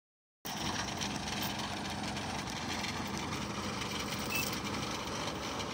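Engines of a tracked rice combine harvester and a small tracked machine running steadily, a continuous hum that starts about half a second in.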